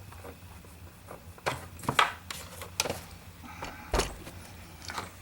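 Fingers pressing the front push buttons of a Husqvarna Viking Designer 1 sewing machine: a few irregular clicks and taps, the loudest about two and four seconds in. The buttons get no response because the cable that powers the button circuit board has come unplugged.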